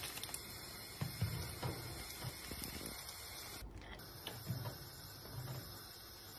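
Thick yogurt soup being stirred and ladled in a pan, with irregular low sloshes and plops of the liquid over a steady hiss.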